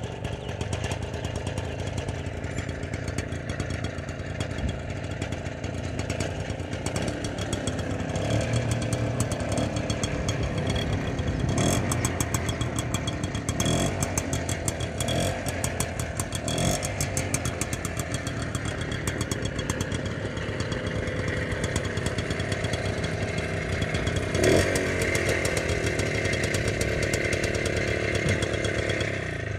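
Minsk motorcycle's single-cylinder two-stroke engine running at idle, its throttle blipped several times in the middle and once more near the end.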